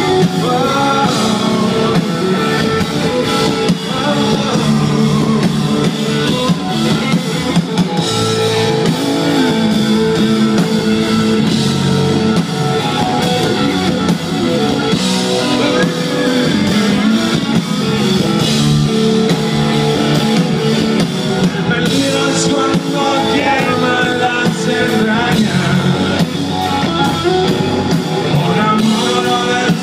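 Live rock band playing loud amplified rock music with electric guitar and drum kit.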